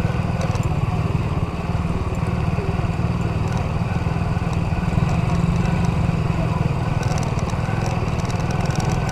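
Orbita 125 petrol ATV engine running steadily at an even speed.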